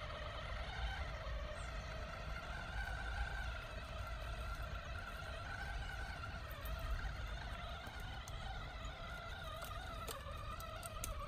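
Cross-RC UC6 6x6 RC truck's electric motor and gearbox whining steadily while it drives, the pitch rising and dipping a little with the throttle. Light clicks and crackles come in during the second half.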